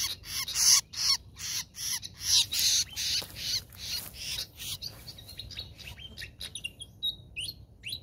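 A bird calling in a rapid series of harsh chirps, about three to four a second, growing fainter after about five seconds and thinning to a few scattered chirps near the end.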